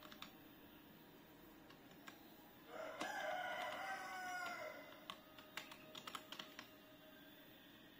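Computer keyboard keys clicking as a command is typed: a few single keystrokes, then a quick run of them a couple of seconds before the end. In the middle a loud drawn-out animal call of about two seconds, with several pitches dipping at its end, stands over the typing.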